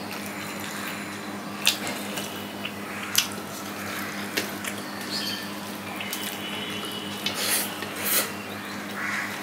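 Fingers mixing rice on a stainless steel plate: soft squishing with scattered clicks and scrapes against the metal, then chewing near the end. A steady low hum runs underneath.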